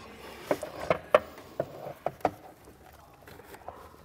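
Ratcheting tubing cutter being squeezed through a short length of rubber hose: about six sharp clicks in quick succession over a couple of seconds, then faint handling noise.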